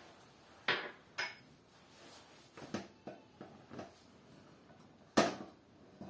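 Kitchen clatter: a series of sharp knocks and clinks from a small glass bowl and a wooden spatula handled against a wok and a stone countertop. The loudest knock comes about five seconds in.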